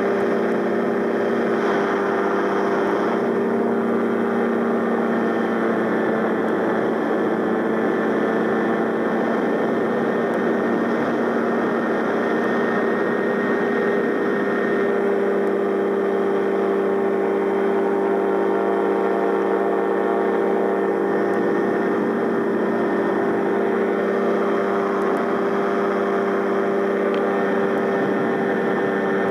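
Gyrocopter engine running steadily at cruise power in flight, an even drone that holds one pitch throughout.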